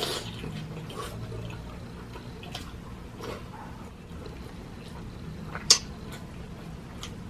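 Eating sounds during a mukbang: scattered wet mouth clicks and smacks of chewing, with one sharp, loud click a little before the end.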